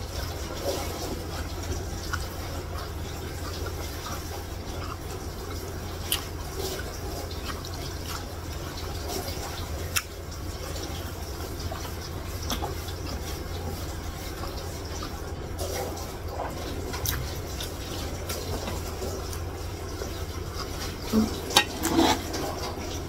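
Close-miked wet chewing and mouth sounds of someone eating rice and curry by hand, with scattered small clicks and smacks, over a steady low hum.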